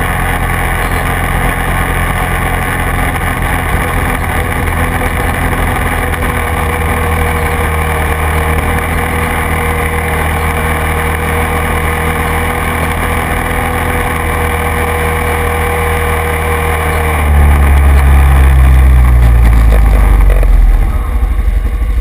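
Quad (ATV) engine running steadily while riding along a dirt track. About three-quarters through it gets louder and its pitch falls as the quad slows, easing off toward idle near the end.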